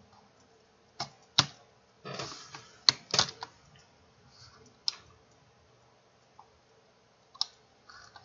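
Computer mouse buttons and keyboard keys clicking: about half a dozen sharp, irregularly spaced clicks, with a quiet stretch between them late on.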